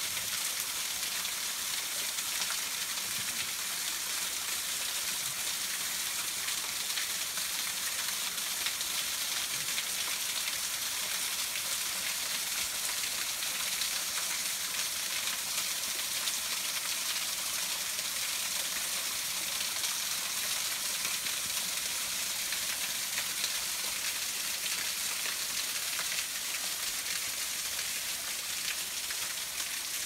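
Steady, even hiss of running water, mostly high-pitched with little low rumble.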